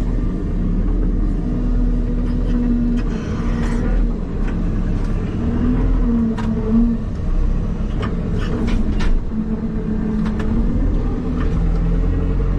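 Diesel engine of a farm machine running steadily at a low, even speed, its pitch wavering slightly, with scattered sharp clicks and knocks from the machine.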